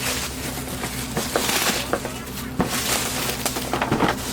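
Cardboard box being opened by hand: rustling and scraping of the flaps and contents, with a few sharp clicks and knocks.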